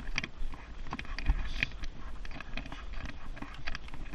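Thule jogging stroller rattling and clicking as it is pushed at a run over tarmac, with a low knock a little over a second in and wind rumbling on the microphone.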